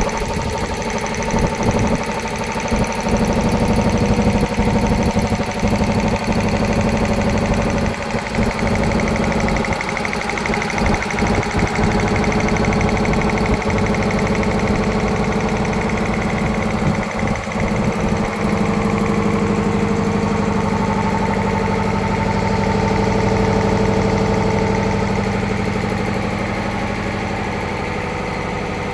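Two-piston reciprocating air compressor driven by a 7.5 HP three-phase electric motor, running steadily, with a few brief dips in the sound in the first half.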